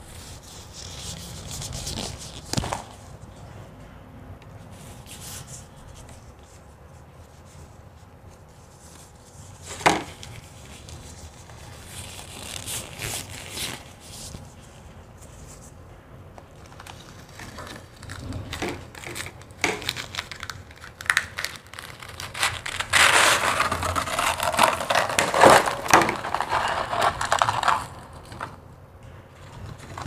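Clear plastic gloves crinkling as they are pulled on, then crushed ice and a thin plastic tub crackling and scraping as they are handled. The crunching is densest for several seconds near the end, as the molded block of powdery ice is worked out of the tub.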